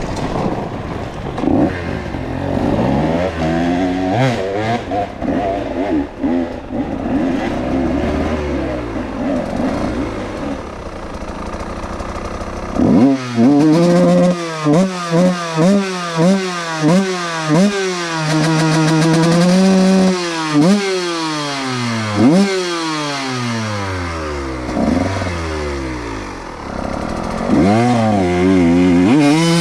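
125cc two-stroke dirt bike engine at hard throttle, its pitch climbing and dropping again and again as it runs through the gears. Somewhat quieter for the first dozen seconds, then loud, with quick rises, falls and short throttle chops, easing off briefly near the end before pulling hard again.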